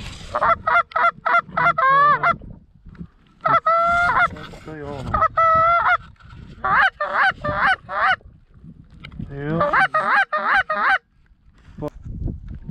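Loud Canada goose honks in five quick runs of short, clipped notes, with a few longer held honks among them.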